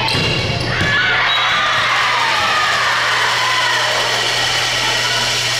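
Crowd and players cheering and shouting in a gymnasium as a volleyball rally ends, many voices at once, over a steady low hum.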